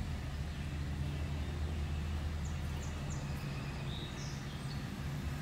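Truck engine idling steadily, a low even hum, with a few short bird chirps about halfway through.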